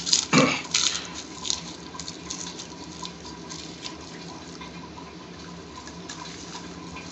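Short crackles and rustles, most in the first couple of seconds, as a gloved hand crumbles dry-fried red chili into a bowl, over a faint steady hum.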